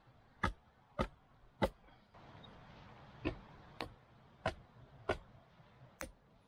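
Hatchet chopping into wood in steady, evenly spaced strokes, about one every half second to two-thirds of a second, with a short pause about two seconds in.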